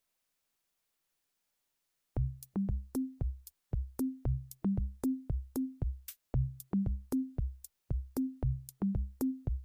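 Electronic background music: a drum-machine beat over a low bass line. It starts about two seconds in, after dead silence.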